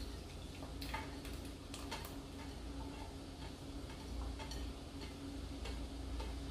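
Faint, irregular ticks and pops from a steel pot of vinegar and onions simmering on the stove, a few to the second, over a low steady hum.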